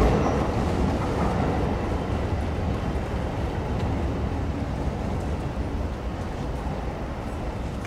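Running noise of a train made up of a JR 205 series electric multiple-unit set hauled by an EF81 electric locomotive, rolling on the rails and fading steadily.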